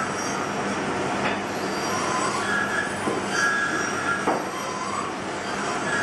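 A carving knife paring a wooden Dala horse blank in short strokes. Several of the cuts squeak for about half a second to a second, and one ends in a sharp click. A steady rushing background noise runs underneath.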